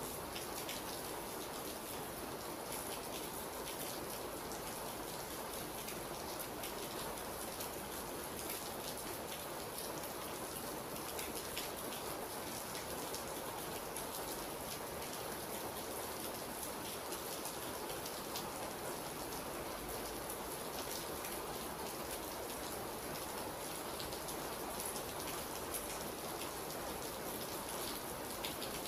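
Steady rain falling, with many individual drops ticking on a surface over an even hiss.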